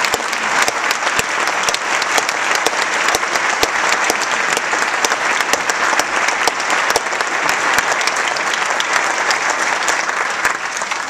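Audience applauding, with a few sharp claps close by standing out from the crowd; the applause dies away near the end.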